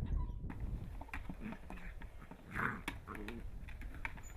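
A dog's short, faint vocal sounds, among scattered small clicks and knocks.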